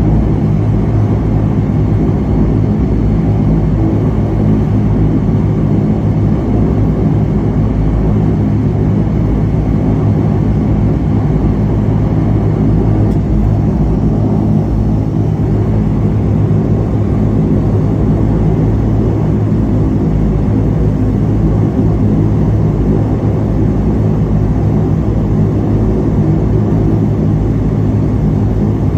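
De Havilland Canada Dash 8 turboprop engine and propeller idling, heard from inside the cabin beside the propeller. A steady, unchanging drone with a strong low hum and a rushing noise above it.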